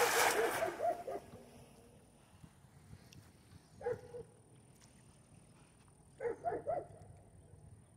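A cast net splashes down on the water at the start. A dog barks several times over it in the first second, once more about four seconds in, and then gives a quick run of about four barks near seven seconds.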